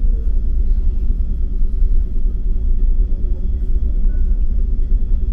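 Steady low rumble of a large car ferry under way: the ship's engine drone carried through the hull, with a faint steady hum above it.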